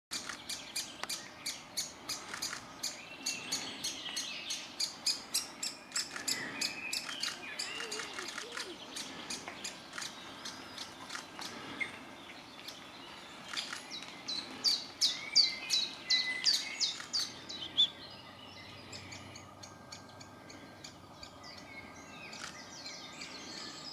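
Great spotted woodpeckers calling: a long series of short, sharp notes, a few a second, quickening into a fast run about two-thirds of the way through, then fading.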